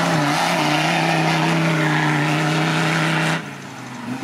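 Off-road trial 4x4's engine held at high, steady revs while its big mud tyres spin and throw dirt on a steep climb. The engine drops off sharply about three and a half seconds in.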